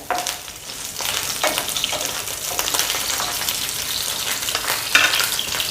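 Finely chopped garlic frying in hot oil in a pan: a steady sizzle with fine crackling spatter, which picks up about a second in.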